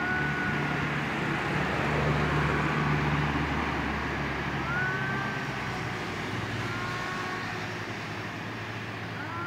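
Cat yowling during a standoff: several drawn-out, wavering yowls a few seconds apart. Under them runs the steady noise of road traffic, with a vehicle engine rumbling past in the first half.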